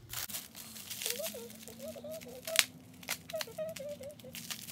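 Plastic bubble wrap crinkling and crackling as it is handled and worked open with scissors, with one sharp snap a little past halfway.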